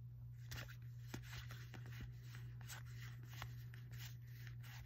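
Magic: The Gathering cards being slid one by one through a hand-held stack, with light, irregular clicks and rubs of card on card over a steady low hum.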